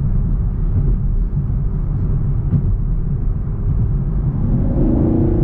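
The 2021 Camaro SS's 6.2-litre V8 cruising, a steady low drone of engine and road noise. Near the end a clear engine tone rises in and holds as the throttle is pressed.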